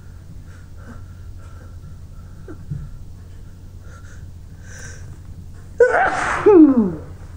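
A person's loud sneeze near the end, in two surges with the voiced second part falling in pitch, after a few seconds of faint breaths. It is one of a run of sneezes set off by tickling the nose.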